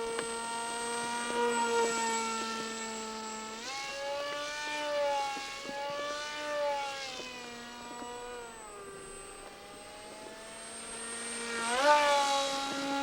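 Wild Hawk RC jet in flight, its motor whine jumping up in pitch with the throttle about four seconds in and again near the end, sinking back in between.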